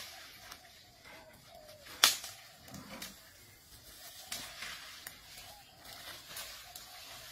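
An Asian elephant walking through jungle undergrowth: leaves and brush rustling, with one sharp snap about two seconds in and a few softer cracks later, over a faint steady background hum.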